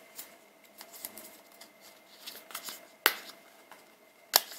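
A memory card's small retail package being handled and worked open by hand: faint rustling and light clicks, with two sharp snaps about three seconds in and near the end.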